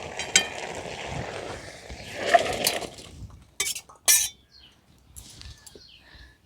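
Metal kitchen utensils scraping and clinking against a pot for about three seconds, then two sharp clinks about three and a half and four seconds in.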